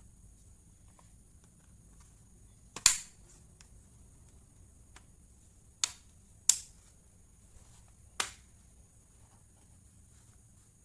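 Four sharp clicks in a quiet room, the first, about three seconds in, the loudest, and two more close together a little past the middle.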